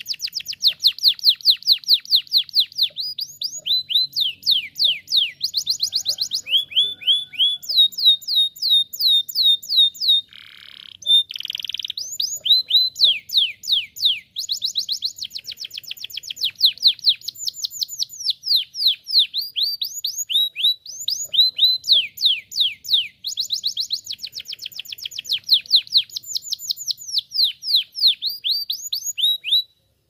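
Domestic canary singing: a long, rolling song made of fast trills, each a run of rapid, downward-sweeping notes, switching from one trill to the next every second or two, with a brief break about ten seconds in.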